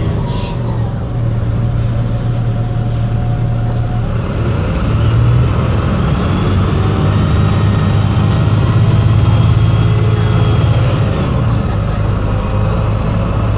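Idling MAN NL 263 city bus with the small MAN D08 diesel engine, running steadily with a low, even hum.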